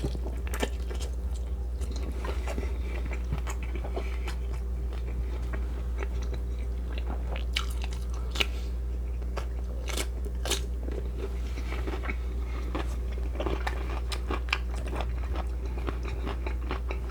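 A person chewing and biting food close to the microphone, with many sharp, crisp crunches scattered through, over a steady low hum.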